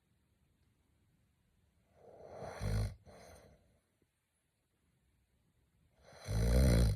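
A man snoring in his sleep: two loud snores about four seconds apart, each building over about a second. The first is followed by a softer breath.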